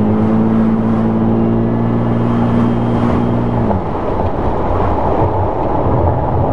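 Supercharged 1GR-FE 4.0-litre V6 of a 2008 Toyota Hilux pulling under load at a steady pitch, heard from inside the cab; about three and a half seconds in the engine note drops away, leaving a loud rumble of road and engine noise.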